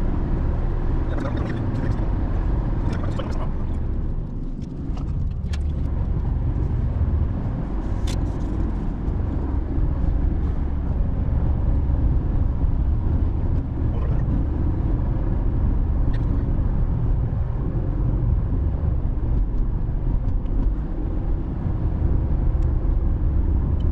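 Steady low road-and-engine rumble of a car driving along the road, with a few faint ticks.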